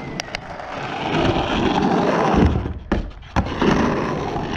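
Skateboard wheels rolling on rough asphalt, a loud grinding roar that swells as the board picks up speed. It drops away briefly near the middle, then comes back. A few sharp clacks of the board sound: two right at the start and two around the middle.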